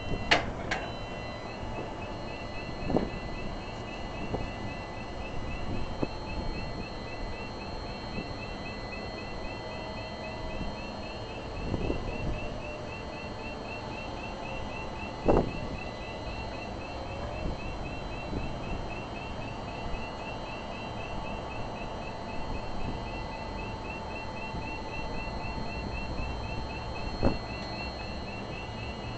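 Rapid, evenly spaced high-pitched chirping, about three a second, starting abruptly about a second in and keeping a steady beat: a warning signal from a building maintenance unit (BMU) facade-cleaning gondola rig as it is operated. A few short knocks sound now and then.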